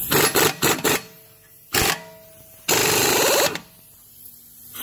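Pneumatic air impact wrench hammering on a 32 mm rear axle nut to break it loose. It runs in several short bursts, then one steady burst of nearly a second in the middle.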